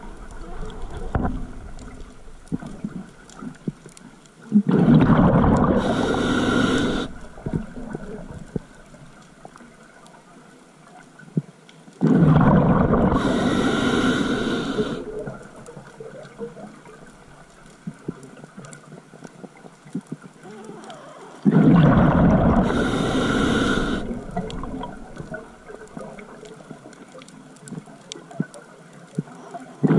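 Scuba diver breathing through a regulator underwater: three long bursts of exhaled bubbles rumbling and hissing, about eight seconds apart, with another starting at the end. Faint ticking lies between the breaths.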